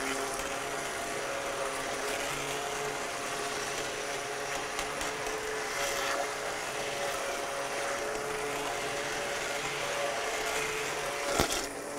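Hand-held immersion blender running in a stainless pot of thick butternut squash soup: a steady motor whine whose pitch shifts in small steps as it churns the purée. A sharp knock near the end.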